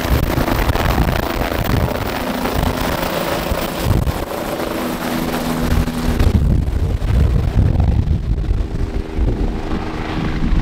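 Bell 407 helicopter lifting off and climbing away, its turboshaft engine and four-blade main rotor running at full power with a steady hum over a pulsing low rumble. About six seconds in the high hiss drops away abruptly, leaving mostly the low rotor rumble as the helicopter draws off.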